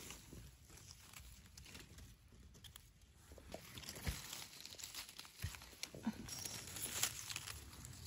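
Dry fallen leaves rustling and crackling as a gloved hand pushes through them and picks a mushroom. The crackling grows busier about halfway through, with a few sharper snaps.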